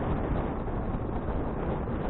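Steady rushing wind noise on the action camera's microphone while cycling, mixed with road noise from the bicycle.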